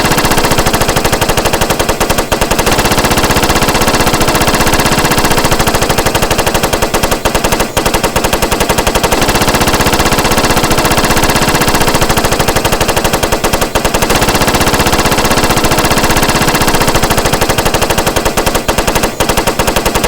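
Machine gun firing in long, continuous automatic bursts, rapid shots with barely a break, as a sound effect.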